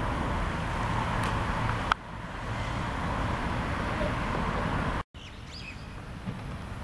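Steady outdoor background rumble, broken by a sharp click about two seconds in. A moment of dead silence follows near the end, after which the background is quieter and a few faint bird chirps come through.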